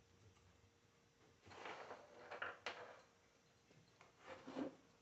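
Faint handling noises of small parts being worked by hand: two short rustling scrapes, with a sharp click between them about two and a half seconds in.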